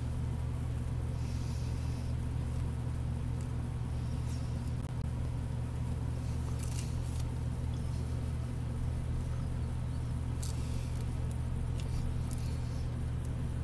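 Steady low hum from a motor or appliance, with a few faint crackles as a man chews a microwaved quesadilla whose crust has gone hard.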